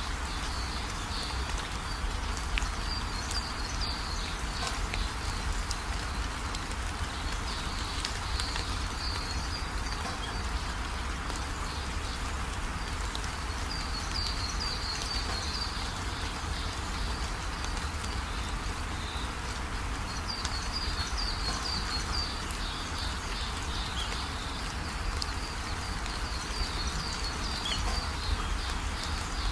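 Forest ambience: a steady hiss with a low rumble, and high chirping calls from birds or insects that come in bursts of a second or two about every six seconds.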